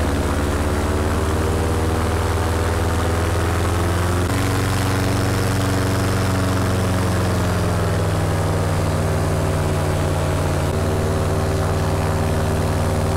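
Paramotor's two-stroke engine and propeller running steadily under power through a low touch-and-go pass. The engine note shifts about four seconds in and again near the end, as the throttle changes.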